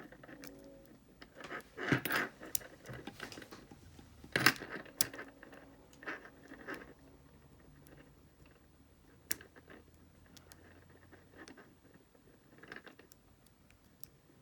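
Lock pick and tension wrench working the pins of a Brinks ProMax security padlock: scattered small metallic clicks and scrapes, with louder clicks about two seconds in and again near four and a half seconds.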